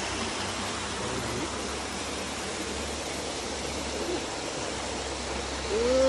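Small waterfall cascading in thin streams over rock into a pool: a steady rush of falling, splashing water. Near the end a brief call rises and falls in pitch.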